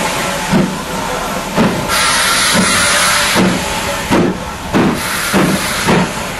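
BR Standard Class 4MT 2-6-0 steam locomotive with steam hissing loudly from around its cylinders and a run of exhaust chuffs, the beats coming closer together in the second half.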